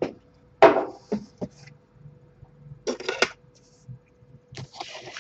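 Short rustles and knocks of a cardboard package and the books inside it being handled, the loudest about a second in, over a faint steady hum.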